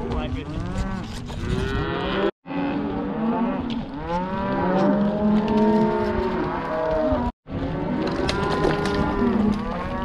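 A herd of cows and calves bawling, many moos overlapping and rising and falling in pitch. The sound drops out briefly twice.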